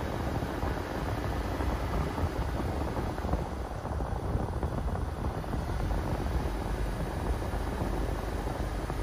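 A car driving steadily on a paved road, heard from inside: a constant low rumble of engine and tyre noise with no changes in pace.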